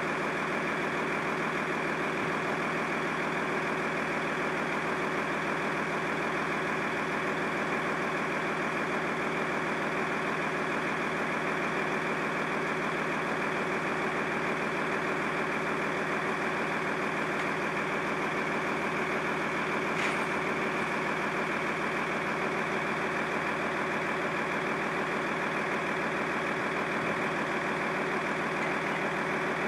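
An engine idling steadily, with an even hum that holds without change. A single short click sounds about two-thirds of the way through.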